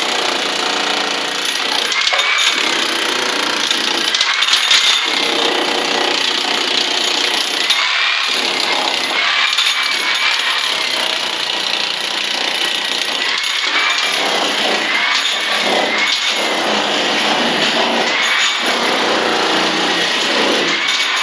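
Electric power tool running continuously at full power, its pitch and level dipping every second or two as it bites into the work.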